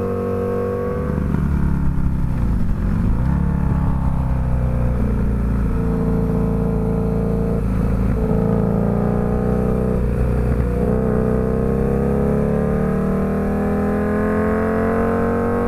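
Motorcycle engine running at speed on a track, with wind rush. Its pitch falls and rises with the throttle, with a rough patch about two to three seconds in, and it climbs steadily over the last few seconds as the bike accelerates.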